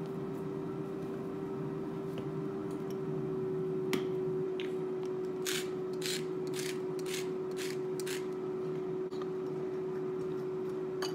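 Cosori air fryer running steadily with a one-note hum as it preheats. About five seconds in, a run of about six short scratchy strokes, evenly spaced half a second apart, as salt and pepper are put on the carrots.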